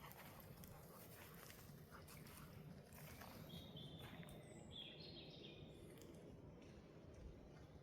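Quiet forest ambience with a few short, high bird chirps around the middle, over faint, soft footsteps on the forest floor.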